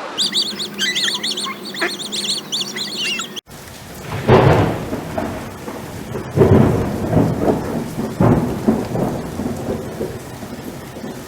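Birds chirping rapidly for about three seconds, then a sudden cut to rolling thunder and rain, with three heavy rumbles a couple of seconds apart.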